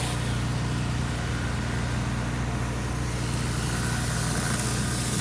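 Honda gas-engine pressure washer running steadily under load, with the hiss of high-pressure water spraying from the surface cleaner on the concrete.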